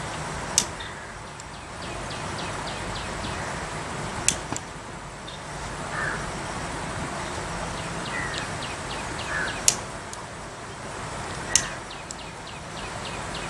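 A hand-held pocket lighter clicked four times, a few seconds apart, in attempts to light camphor in a wood fire. Behind it a bird trills and chirps now and then over steady outdoor hiss.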